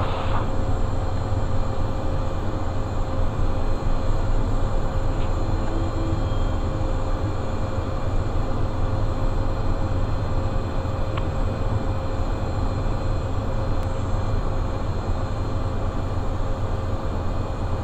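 Cockpit noise of a Cessna Citation 501 business jet with its twin turbofan engines idling on the ground: a steady low rumble with a steady hum above it.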